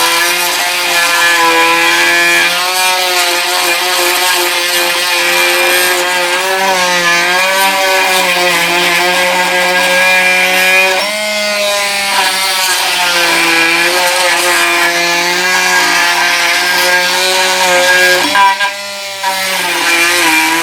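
Milwaukee M12 oscillating multi tool plunge-cutting into timber with a wood plunge-cut blade: a steady buzzing whine whose pitch sags and recovers as the blade is pressed into the wood. It drops out briefly near the end, then runs again.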